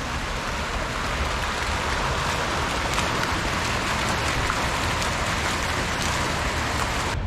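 Steady hiss of splashing, rushing water, like a fountain or water spray, that cuts off suddenly just before the end.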